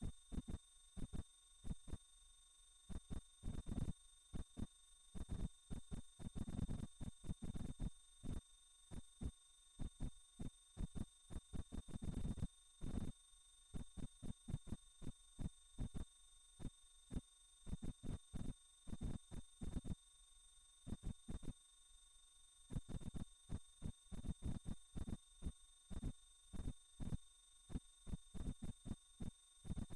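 Synthesized pure sine tone of a sound-healing frequency track, very high-pitched and held steady, pulsing in level about four times a second.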